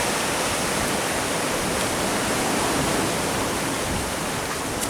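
Steady rushing noise of sea surf breaking and washing on the shore.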